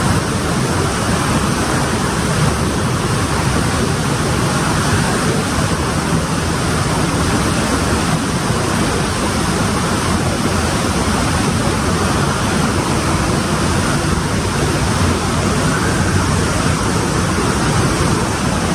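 Loud, steady rush of a waterfall and fast river current in a narrow rock canyon, heard up close; the river is running high.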